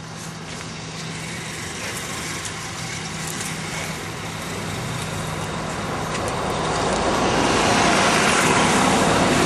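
Road and engine noise of a moving car: a steady low hum under a hiss of tyre and traffic noise that grows louder about two-thirds of the way through.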